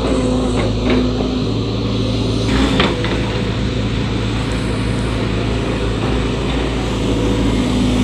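Volvo crawler excavator's diesel engine running steadily while the hydraulic arm digs and lifts a bucket of earth. A few short knocks sound over it, the loudest a little under three seconds in.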